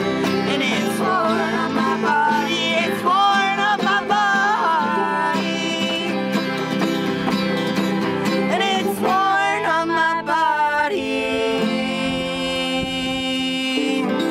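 Acoustic string band playing a bluegrass-style song: strummed acoustic guitar, picked banjo and fiddle, with a wavering sung melody over the chords. In the last few seconds the melody stops and the band holds long notes.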